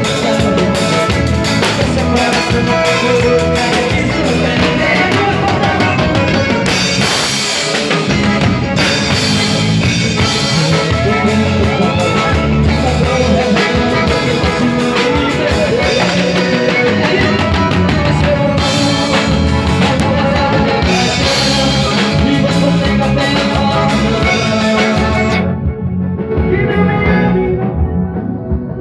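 Live sertanejo band playing: drum kit with cymbals driving the beat under accordion and guitar. Near the end the cymbals drop out and the band plays softer.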